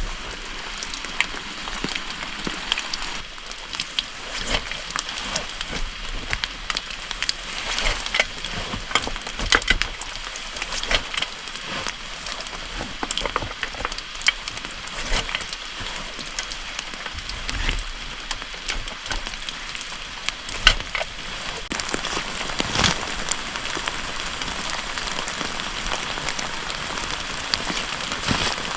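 Wood campfire crackling: a steady hiss with frequent irregular pops and snaps from the burning firewood.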